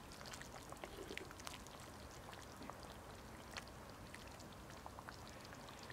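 Wooden spoon stirring a thick, steaming stew in a cast-iron Dutch oven: faint wet sloshing with scattered small clicks and ticks.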